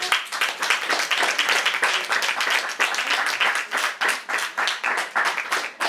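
Small audience applauding, many hands clapping quickly and densely.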